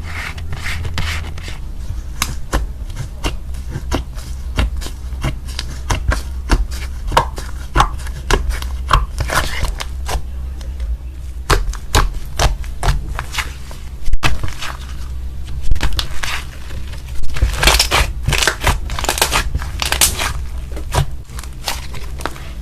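Slime being squeezed and pressed by hand, making a quick run of sharp clicks and pops over a steady low hum.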